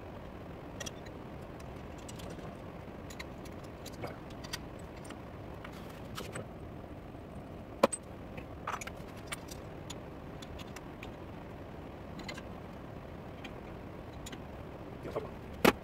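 Metal lathe work: scattered metallic clicks and clinks of tools and parts at the chuck and tool post over a steady hum, with a sharp knock about eight seconds in and another near the end.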